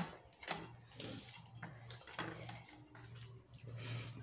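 Fingers mixing rice and fish on a metal plate: soft scattered clicks and scrapes of hand and food against the plate, over a low steady hum.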